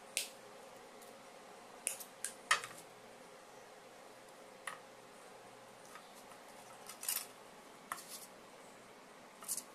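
Scattered sharp clicks and snips from pliers cutting and bending thin wire, with the wire and small PVC pipe pieces being handled. The clicks come one at a time, a second or more apart, the loudest about two and a half seconds in.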